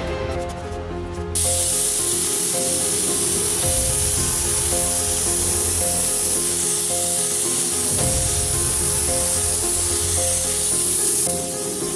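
Gravity-feed air spray gun hissing steadily as it sprays rust-preventive paint onto a truck cab floor. The hiss starts about a second in and cuts off near the end, over background music.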